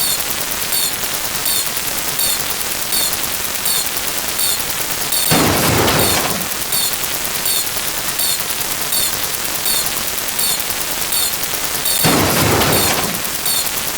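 Many overlapping sound effects blend into a steady hissing wash, with faint high ticks repeating about twice a second. A louder rushing surge comes about five seconds in and again near the end.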